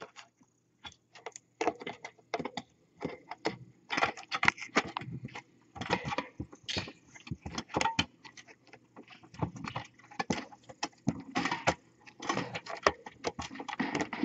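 Metal wire cutlery basket fitted over a webcam rattling and clinking in irregular clusters as a cat pushes and rubs against it.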